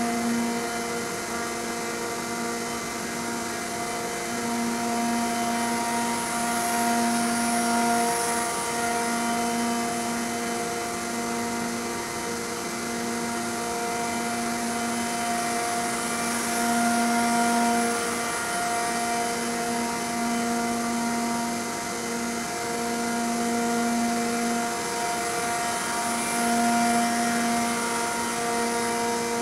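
CNC router spindle spinning a 2.5-inch fly cutter as it skims the spoilboard surface: a steady, pitched machine whine that swells and dips every few seconds as the cutter traverses the board.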